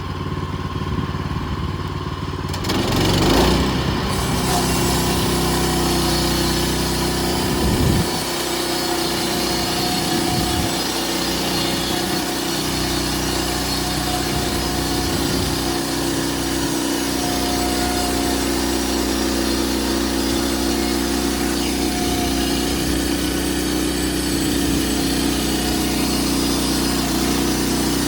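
Bushlander HM122 portable sawmill's engine running steadily. About two and a half seconds in it revs up and then holds at speed with the blade running.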